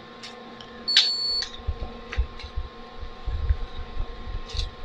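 Card payment terminal at a store checkout gives one short, high beep about a second in, as a card payment is processed. Scattered light clicks and knocks follow, over a steady faint electrical hum.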